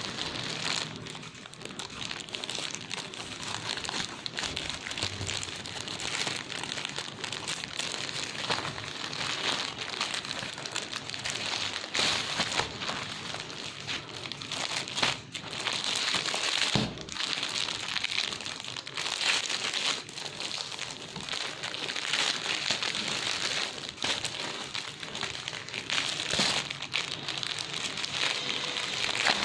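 Plastic packaging crinkling and rustling as a parcel is handled and unwrapped, with many sharp crackles.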